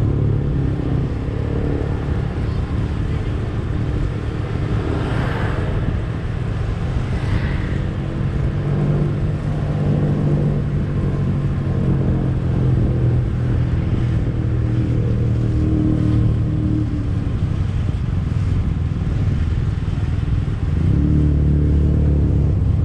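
A motor vehicle's engine running as it drives slowly along a street, its hum drifting up and down in pitch, growing louder near the end.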